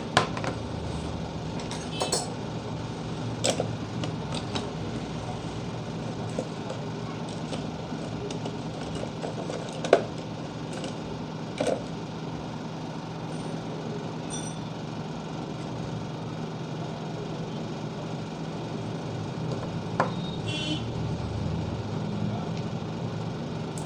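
A steady low machine hum, with scattered small clicks and taps of a mobile phone and tools being handled on a repair bench.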